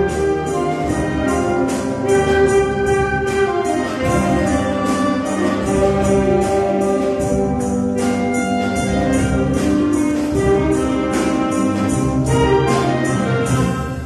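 Symphonic wind band playing live: brass and woodwinds hold full chords over a steady percussion beat, and the band dies away at the very end.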